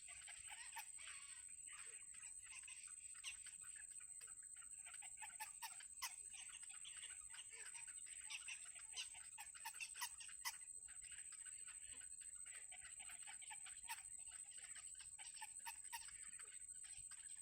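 Faint, irregular peeping and small clicking from baby birds in a nest, over a steady high-pitched whine.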